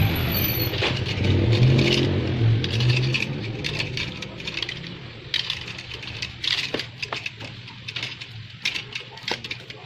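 A motor vehicle engine hums in the background and fades out about three or four seconds in. After that come scattered small clicks and rustles of hands handling and routing the scooter's wiring harness behind its front panel.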